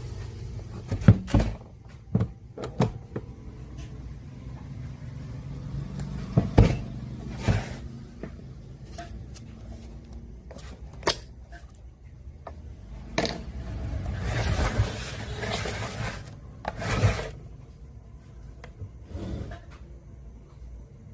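Handling noise from working on a radio cassette player at a bench: irregular sharp clicks and knocks, then a longer stretch of rubbing and scraping in the second half.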